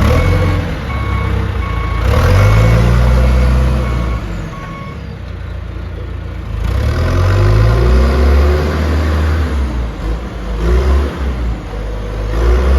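John Deere 310SE backhoe's turbocharged diesel engine revving up and down as the machine is driven off, with its reversing alarm beeping steadily for the first few seconds, then stopping.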